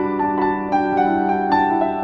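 Background music: a gentle piano melody over a sustained low note.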